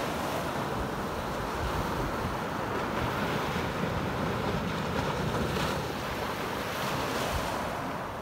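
Small waves breaking and washing up a pebble beach, with wind blowing on the microphone.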